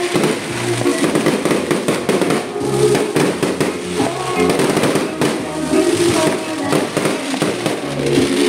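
Fireworks and firecrackers crackling and popping in quick strings, with music playing underneath.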